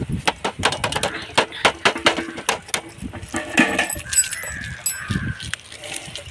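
A quick, irregular run of clinks and knocks, densest in the first three seconds and sparser after, like kitchen utensils or hard objects being handled.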